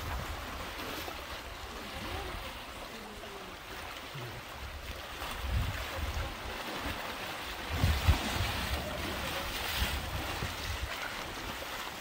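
Flowing river water and elephants wading through it, with wind gusting on the microphone in uneven low rumbles that are strongest about halfway through and again about two-thirds in.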